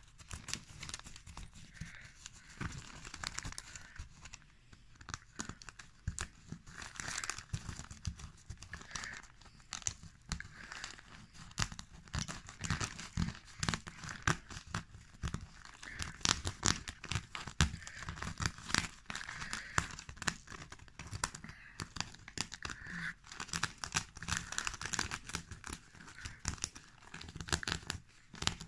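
Newspaper rustling and crinkling under a hand pressing and rubbing on it, with many small irregular crackles throughout.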